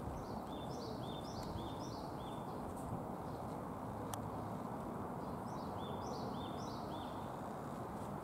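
A small songbird singing two short phrases of several quick, falling chirps, the first near the start and the second about two-thirds of the way through, over a steady low outdoor background hum. A single sharp click sounds about halfway.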